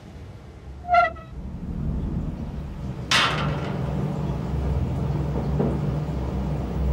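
Car sounds: a short horn toot about a second in, then a sudden loud whoosh about three seconds in that fades away, over a vehicle engine running with a steady low rumble that grows louder.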